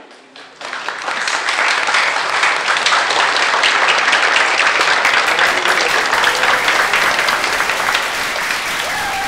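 Audience applauding after a speech, many hands clapping; it builds up over the first second and then holds steady.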